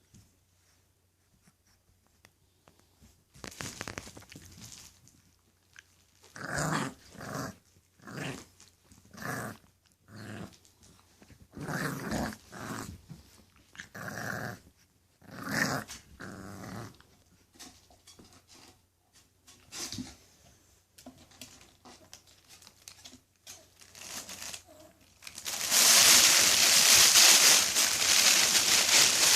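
English Bulldog puppies growling, a string of short separate growls with gaps between them. Near the end a loud, steady rustling noise starts and covers everything.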